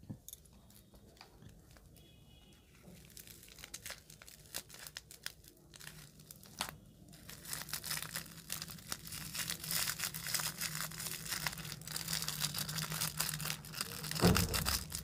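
Plastic piping bag crinkling and crackling as fingers squeeze it, sparse at first, then denser and louder from about halfway, with a thump near the end.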